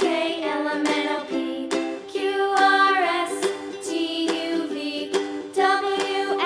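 Background music: a light plucked-string tune with regular note onsets.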